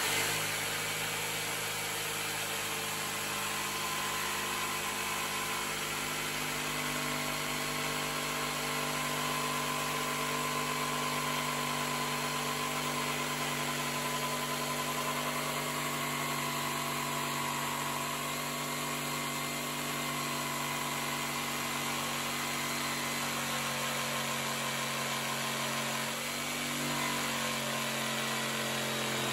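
Makita 4329 orbital-action jigsaw running steadily as it cuts into the edge of a wooden worktop, its motor pitch wavering briefly near the end.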